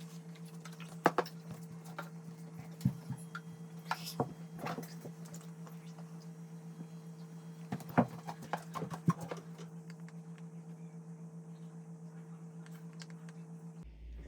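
Scattered light clicks and knocks of a plastic chocolate mold and cake-pop stick being handled on a counter, a few taps clustered around the first five seconds and again a little past the middle, over a steady low hum that cuts off near the end.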